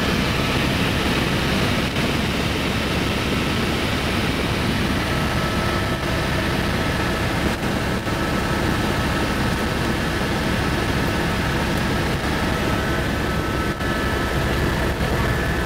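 Helicopter in flight heard from inside its cabin: loud, steady engine and rotor noise with a faint high whine running through it.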